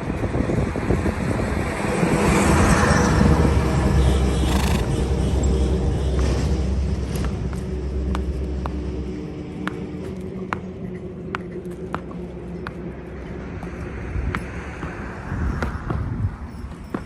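A motor vehicle's engine runs close by, rumbling loudest in the first half and dropping away about nine seconds in. Scattered sharp knocks follow at uneven intervals.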